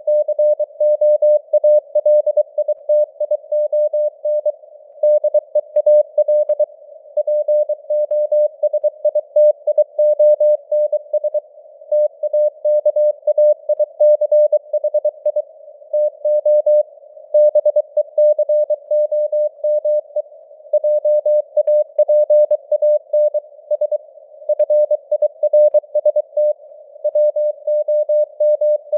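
Morse code at 23 words per minute: a single mid-pitched beep keyed on and off in dots and dashes, with short pauses between words, over a narrow hiss of simulated radio noise.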